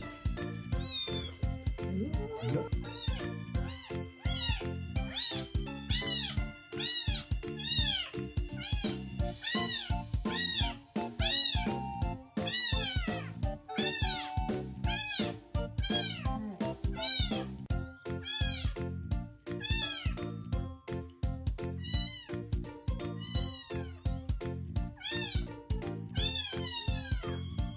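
Very young kitten mewing over and over, high-pitched rise-and-fall calls about once a second, over background music.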